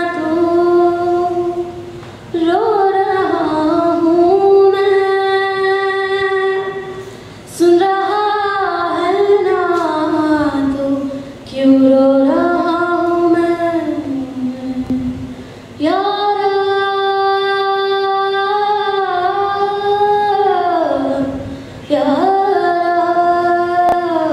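A woman singing solo in long held phrases with sliding pitch bends, a fresh phrase starting every four to six seconds. No clear beat or accompaniment stands out.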